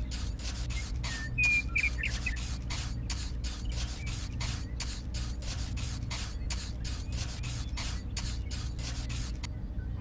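Small hand trowel spreading and patting wet concrete, quick repeated scraping strokes about three or four a second. There are a few brief high chirps about one and a half to two seconds in.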